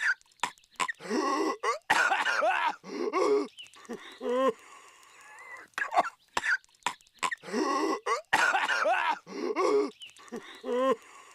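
Cartoon character Patrick Star coughing violently: harsh hacking coughs with strained, wobbling throat sounds between them. The same few-second run of coughs repeats twice, as a loop.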